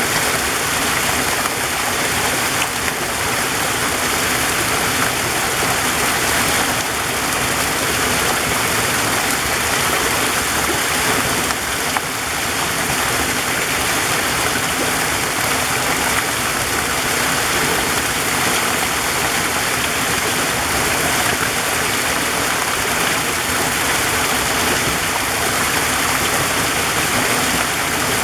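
Waterfall: water falling and rushing steadily, an even, dense hiss with no pauses.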